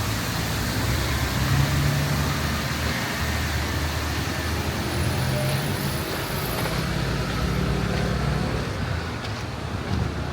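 Road traffic: motor vehicles running past, a steady rumble with engine hum that swells and eases over several seconds.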